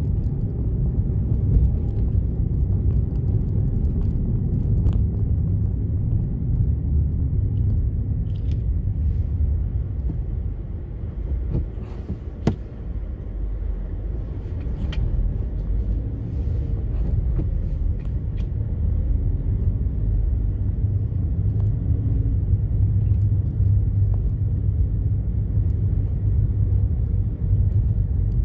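Car driving on a dirt road, heard from inside the cabin: a steady low rumble of engine and tyres, with a few sharp clicks, the loudest about halfway through.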